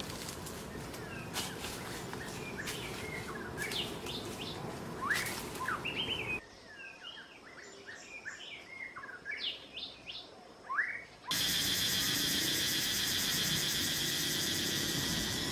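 Wild birds chirping in short, quick rising notes over a noisy rustling background, which drops away abruptly about six seconds in while the chirps go on. Near the end a loud, steady, high-pitched buzzing drone cuts in suddenly and becomes the loudest sound.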